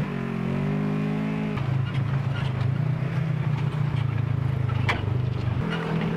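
Off-road vehicle's engine running under throttle on a trail, its pitch dropping about one and a half seconds in and rising again near the end, with a few sharp knocks and rattles.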